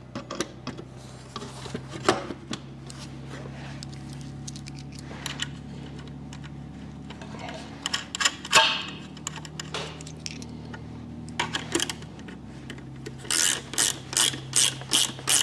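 Small metal clicks, clinks and rubs as a propeller is offered up onto the engine's hub studs and its titanium nuts are started by hand, over a steady low hum. A scraping rub comes about halfway through, and near the end there is a quick run of about eight sharp clicks, roughly three a second.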